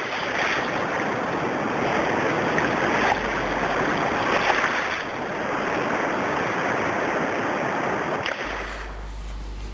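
Surf washing up a beach, a rushing hiss that swells and ebbs with each wave. About eight and a half seconds in it gives way to a quieter, steady low hum.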